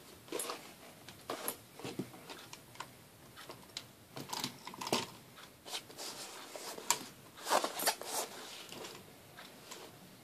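Handling noises from a Black Shark gaming headset and its fabric carrying case being moved about on a hard tabletop: irregular clicks, taps and short rustles, busiest about seven to eight seconds in.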